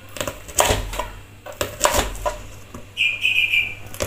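A knife chopping through a raw corn cob and knocking on a plastic cutting board, several cuts in the first two and a half seconds. Near the end comes a short, high chirp.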